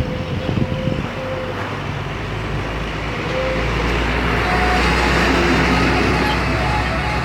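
A large bus's diesel engine rumbling as it approaches and passes close by, growing louder to a peak about five seconds in, with road and tyre noise.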